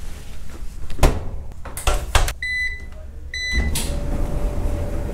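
Front-loading laundry machine: a few clunks, then two short electronic beeps from its control panel about a second apart, then the machine starts running with a steady hum.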